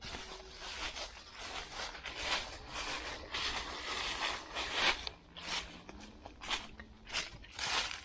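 Footsteps on dry fallen leaves, a step roughly every half second at a steady walking pace.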